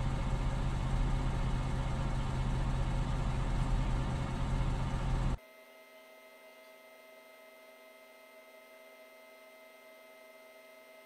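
Pickup truck engine idling with a steady low rumble. About five seconds in it cuts off abruptly, leaving only a faint steady electrical hum with a few thin high tones.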